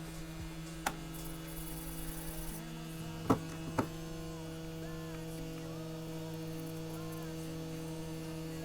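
Steady low electric hum of a bench tool's motor, most likely a hot air rework station's fan while the chip is soldered back onto the ECU board, with three light clicks of tools on the board.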